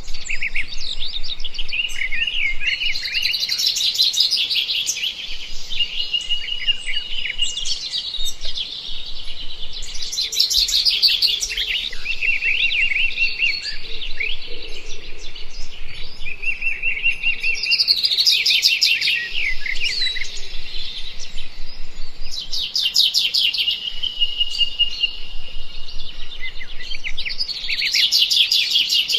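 Small songbirds chirping and singing without pause: quick high trills and short whistled notes, swelling into a denser burst of trilling every several seconds.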